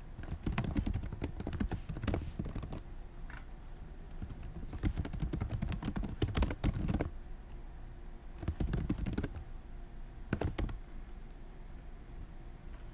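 Computer keyboard being typed on in quick bursts of keystrokes separated by short pauses.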